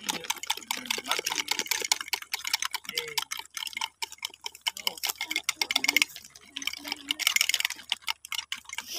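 Quick, irregular clicking and tapping of spoons against plastic cups and bottle necks as a mixture is measured out by the spoonful into plastic water bottles.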